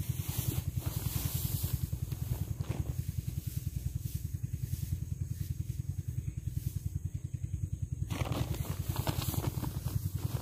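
A small engine running steadily with a fast, even low pulse. Above it is a hiss with fine crackles that grows louder about eight seconds in.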